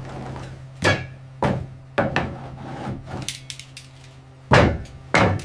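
A series of about six sharp knocks, like hammer blows, at uneven intervals. The loudest comes near the end. A steady low hum runs underneath.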